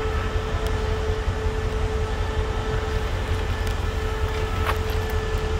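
CRRC Qishuyan diesel locomotives running close by: a steady low engine rumble with a constant hum held over it, unchanged throughout, as one locomotive rolls slowly in on the next track.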